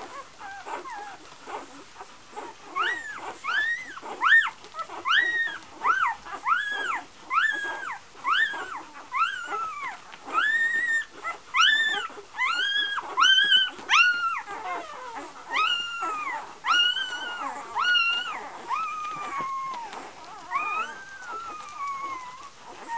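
Newborn golden retriever puppies crying while nursing: a string of high, arched squeals about two a second, some drawn out longer, ending in a falling whine near the end.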